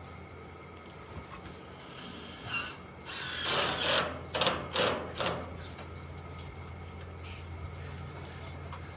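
A pulled folding utility wagon rattling over rough ground in several bursts for about two seconds, a few seconds in, over a steady low hum.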